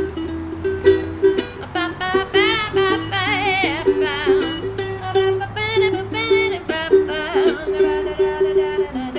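Ukulele strummed in a steady rhythm. A high melody line with a wide wavering pitch plays over it from about two seconds in until shortly before the end.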